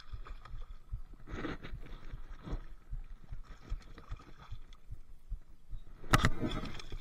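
Handling noise on a body-worn camera: irregular knocks and fabric rubbing as the wearer moves about on rocks, loudest about six seconds in, when a shirt brushes across the camera.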